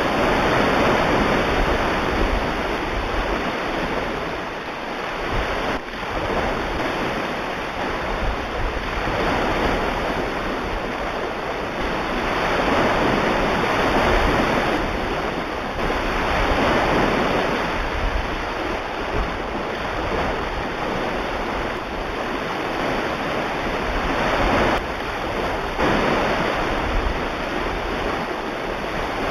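Recording of ocean surf: a continuous rush of breaking waves that swells and eases every few seconds.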